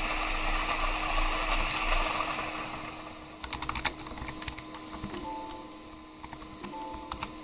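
Typing on a computer keyboard: scattered keystrokes in two short runs, starting about three seconds in. Before them, a steady hissing noise fades away over the first three seconds.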